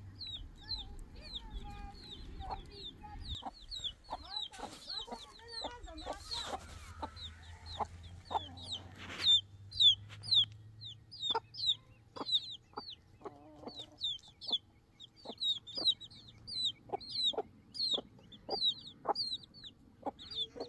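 A brood of chicks peeping without pause in short, high, falling chirps, while a mother hen clucks over and over among them. A few brief rustles come between about four and nine seconds in.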